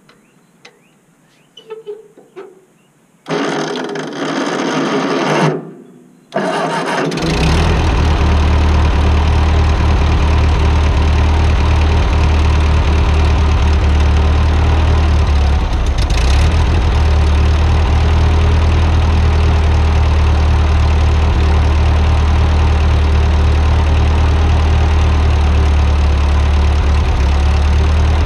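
Ford 8N tractor's four-cylinder flathead engine being started: a few faint clicks, about two seconds of starter cranking, a short second crank, then the engine catches a little after seven seconds and runs steadily. It is the first start on its freshly cleaned and rebuilt carburetor.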